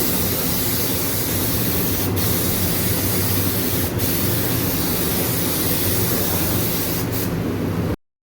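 Steady hiss of compressed air spraying over a low motor hum, with short dips in the hiss about every two seconds. It cuts off abruptly near the end.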